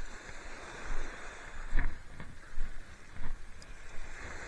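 Footsteps crunching on a pebble beach, about one step every three-quarters of a second, over the steady wash of small waves on the shingle, with a couple of sharp clicks from handling the fishing rod and reel.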